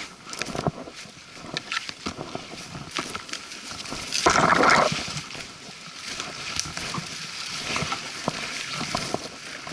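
Footsteps and trekking-pole strikes of a hiker walking through leaf litter and brush, a run of irregular clicks and light crunches. About four seconds in comes a louder brushing rush lasting under a second.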